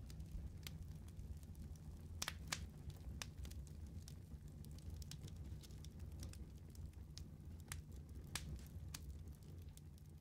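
Faint scattered crackles and clicks over a low steady hum.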